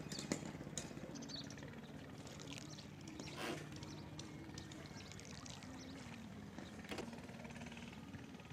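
Small boat's engine running slowly and evenly, its pitch shifting slightly a couple of times, with water sloshing around the hull and two brief sharper noises about three and a half and seven seconds in.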